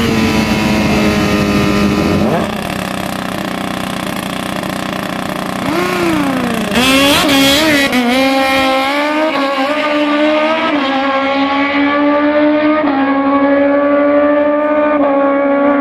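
Two drag-racing motorcycles launching and running hard down the strip under full throttle. The engine note drops back for a few seconds, then comes in louder again and changes pitch in several steps as the bikes pull away.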